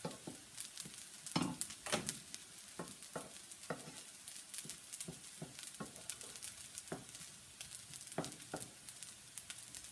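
Shrimp and pineapple sizzling in a frying pan while a wooden spoon stirs and scrapes them, with irregular clicks and knocks of the spoon against the pan.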